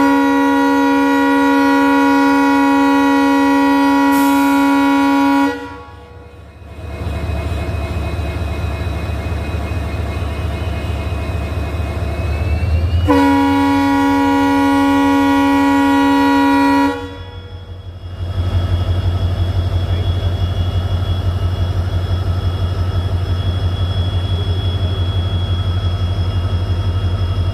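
EMD WDP-4B (GT46PAC) diesel locomotive sounding its horn in two long blasts, the first about five seconds and the second about four, some eight seconds apart. Between and after the blasts the locomotive's two-stroke diesel engine runs with a low, fast, even throb.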